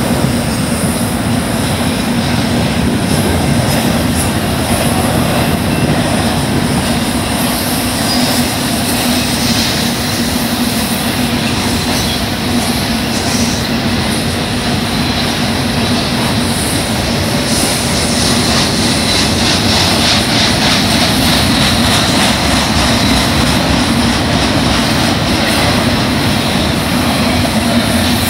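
BNSF double-stack intermodal train's well cars rolling past close by: steel wheels on rail making a loud, steady running noise with no letup.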